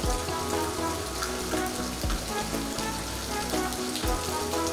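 Steady rain falling on wet pavement and puddles, with background music laid over it.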